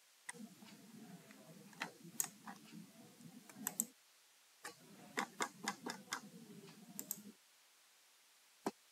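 Faint clicking of a computer mouse and keyboard, in two runs of a few seconds each over a low rustle, with one lone click near the end.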